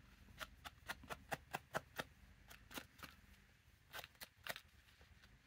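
Faint, irregular clicks and taps of a paper-and-lace craft heart and a small applicator tool being handled on the table, most of them in a cluster about a second in and another around four seconds.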